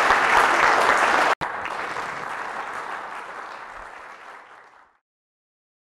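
Audience applauding. About a second and a half in it drops suddenly to a lower level and then fades out over the next few seconds.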